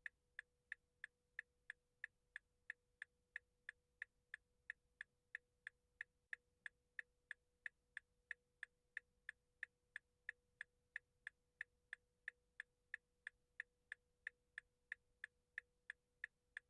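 A clock ticking faintly and evenly, about three ticks a second, over a faint steady hum.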